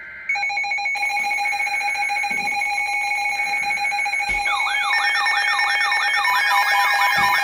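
Emergency weather alert tones: after a brief two-tone data screech, a steady piercing electronic alert tone sounds, and about four and a half seconds in a fast rising-and-falling siren sweep joins it, about three to four sweeps a second. Several alert devices are sounding at once as a new warning comes in.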